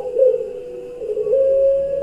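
Puter pelung dove cooing: a brief call at the start, a lull, then one long drawn-out coo held steady from a little past a second in.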